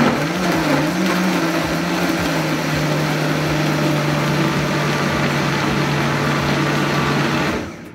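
Countertop blender motor running, blending a thick groundnut paste with peppers and onions. The hum wavers in pitch for the first two seconds, then holds steady, and the motor cuts off about seven and a half seconds in.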